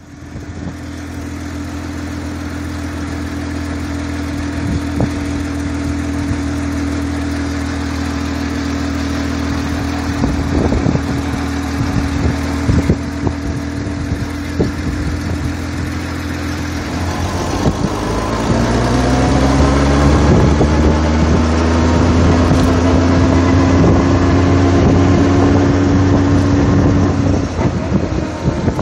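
Motorcycle engine running on a moving sidecar rig, steady at first. About two-thirds of the way in, the pitch rises as it accelerates. It then settles into a louder, steady cruise, easing off near the end.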